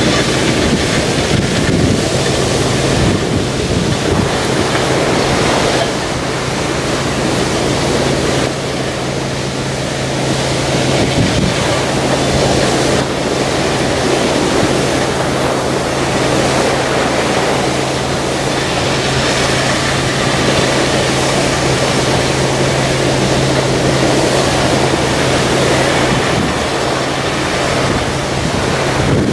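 Surf washing onto a shingle beach with wind buffeting the microphone, over a steady low drone from a dredger pumping shingle ashore through its spray jet.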